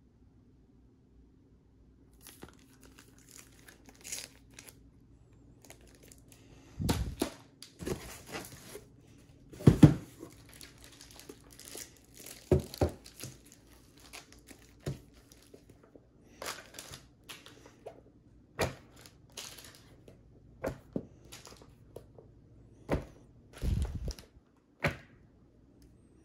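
Clear plastic packaging crinkling and rustling as large hardcover and paperback books are handled. Several dull thumps of the heavy books being set down on a table. It starts about two seconds in.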